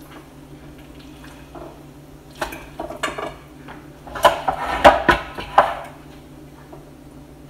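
A spoon clinking and scraping against a bowl as herb paste is scooped out. It comes in two bouts of clatter: a short one about two and a half seconds in, and a louder run of knocks from about four to six seconds.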